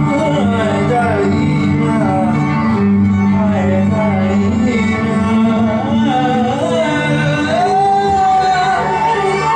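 Live band music: a voice singing a wavering melody over steady held low chords.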